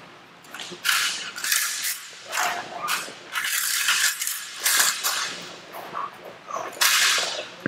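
A training stick cracking and rattling in a run of sharp, irregular strikes during protection bite work, starting about a second in.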